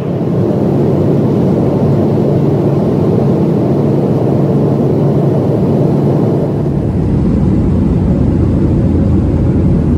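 Boeing 737's jet engines heard from inside the cabin in flight: a loud steady rush with a low steady hum beneath it.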